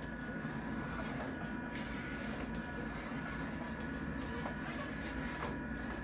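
Vari*Lite VL4 moving light's pan and tilt motors running as the head swings to a new position, a steady mechanical whir.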